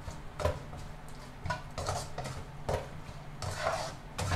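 A utensil clinking and scraping against a pan in irregular strokes while minced duck larb is stirred together with its seasonings.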